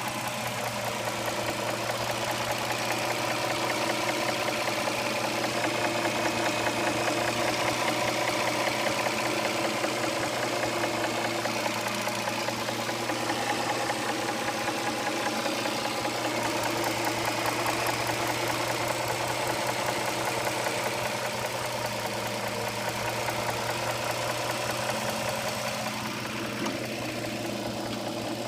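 2007 Dodge Charger 3.5-litre V6 idling with a fast, steady knocking tick from the top of the engine, which the owner suspects is the lifters or rocker arms, with the oil at the right level.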